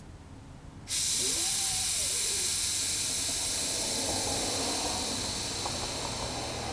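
Air suspension on a Mk4 Volkswagen Jetta's rear axle hissing loudly as air rushes through the air-ride valves to move the rear ride height. The hiss starts abruptly about a second in and holds steady, easing only slightly.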